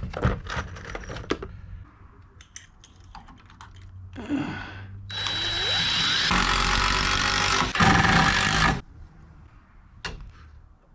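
Power drill driving a screw into a 2x4 stud: a short burst, then a steady whir of about four seconds that gets heavier partway through as the screw bites, with a brief break before the last push. A few light knocks and clicks of handling the board and tool come first.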